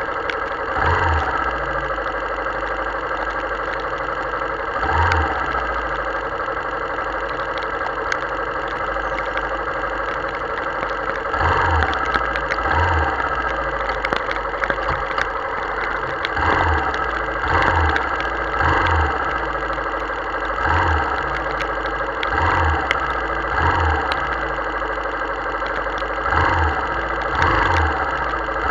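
Motorcycle engine idling at a standstill in heavy rain, with the steady hiss of the downpour. Short low thuds and brief swells come and go every one to four seconds.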